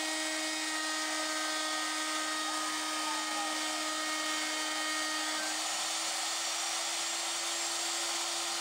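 Pilot Pro CNC router's high-speed spindle whining steadily as it mills aluminum, with a hiss of cutting over the tone; the pitch steps up slightly about two-thirds of the way through.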